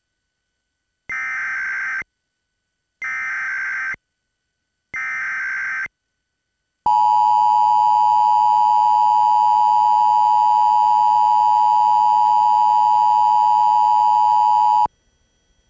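Emergency Alert System test signal: three one-second bursts of digital header data, about a second apart, followed by the steady two-tone attention signal held for about eight seconds, then cut off sharply.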